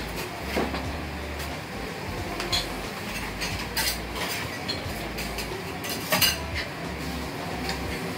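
A ladle clinks against a steel mixing bowl and the iron griddle as okonomiyaki batter is ladled out and spread into thin crepes. The sharp clinks are scattered over steady kitchen background noise, with two close together about six seconds in.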